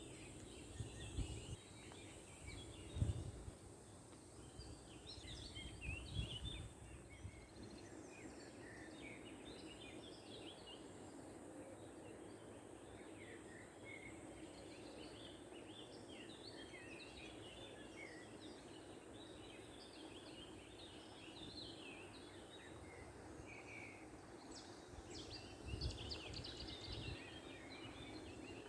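Several songbirds chirping and twittering over a steady background rush, with a few low thumps near the start and near the end.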